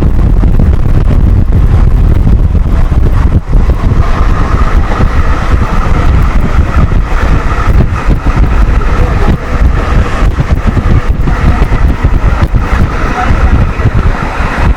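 A fast-running passenger train rumbles along the track, with wind buffeting the microphone in gusts. A higher rushing hiss comes in about four seconds in.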